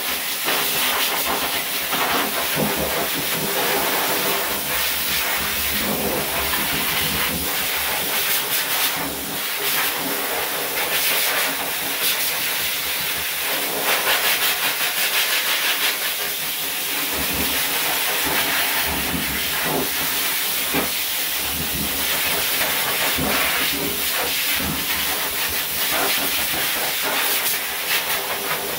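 High-velocity dog dryer blowing a steady rush of air through its hose and nozzle onto a wet dog's coat. The rush wavers slightly as the nozzle moves through the fur.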